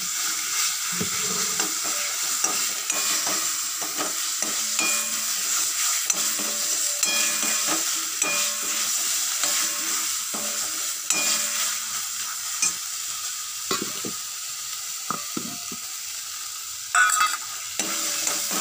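Ground cauliflower-leaf paste sizzling in hot oil in a metal kadai while a spatula stirs and scrapes it round the pan, being fried down until dry. There is a louder sharp knock of the spatula near the end.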